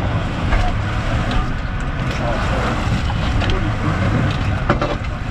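Sportfishing boat's engine running with a steady low hum, under wind and water noise. A sharp knock near the end.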